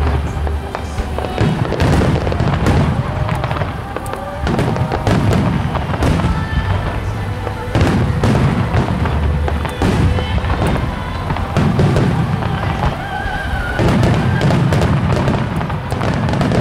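Starmine fireworks: shells bursting in quick succession, with deep booms every second or two and crackling between them. They sound over background music of a soprano singing.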